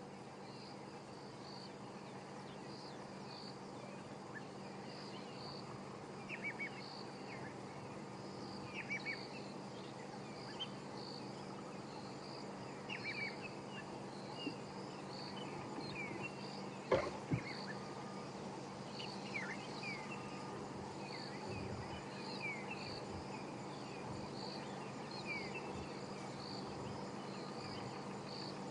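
Male lions making faint low rumbling purrs while rolling together in the grass, under a steady chorus of an insect calling in an even pulse about once a second and birds giving short falling chirps. One sharp knock about 17 seconds in.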